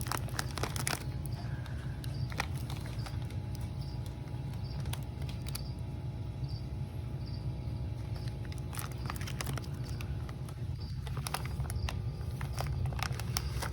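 Steady low hum with scattered light clicks and taps, heaviest near the start and again in the last few seconds, and a faint high chirp repeating about once a second.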